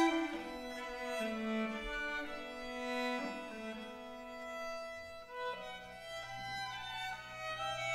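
Solo violin playing a slow traditional Scandinavian fiddle tune in long held notes. About five and a half seconds in, a low held note joins underneath.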